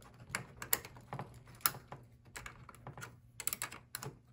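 A wrench clicking and clinking against a nut and the metal flat-bar linkage as a bolt is tightened: irregular sharp metallic clicks, with a quick run of them about three and a half seconds in.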